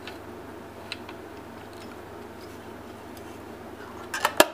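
Small metal clicks from a 1928 Agfa Billy Record folding camera being handled: a few faint ticks near the start, then a quick run of three or four loud snapping clicks near the end as the back cover goes on and latches.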